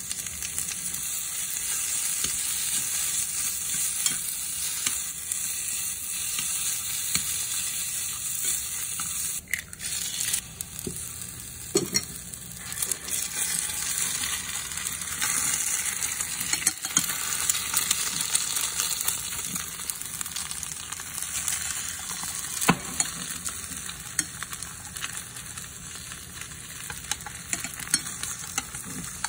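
Sliced onions and egg sizzling in a hot nonstick frying pan, a steady hiss, while wooden chopsticks stir the egg. A few sharp taps are heard now and then.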